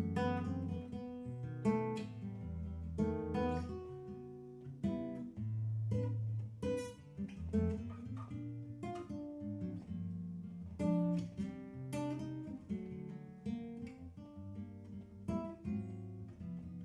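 Acoustic guitar played fingerstyle in a bossa nova rhythm: plucked bass notes under short chord tones, without singing.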